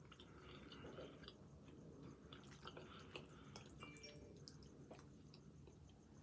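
Faint chewing of creamy pasta: soft, scattered mouth clicks and smacks, otherwise near silence.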